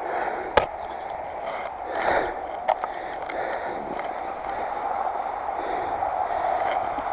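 Wide tires of a Northrock XC00 fat bike rolling and crunching over snow in a steady rush, with two sharp clicks, about half a second in and just under three seconds in.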